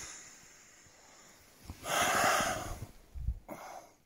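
A man, out of breath, lets out one loud huffing breath about two seconds in, followed by a low thump.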